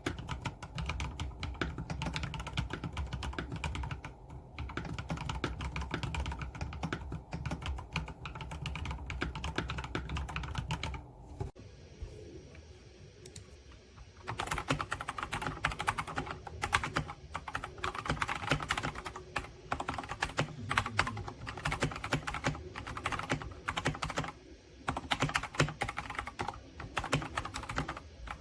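Fast typing on a Redragon K689 gasket-mounted mechanical keyboard with linear switches: a dense run of key clicks that drops away for a couple of seconds about twelve seconds in, then picks up again.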